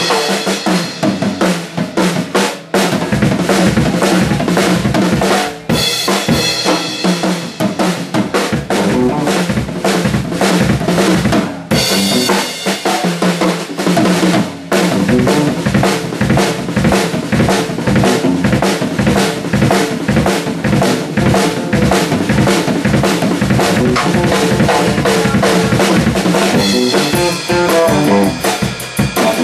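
Live drum solo on a Yamaha drum kit: rapid snare rolls, rimshots and fills over the bass drum, with the electric bass holding a low line underneath. Near the end the electric guitar comes back in with the full band.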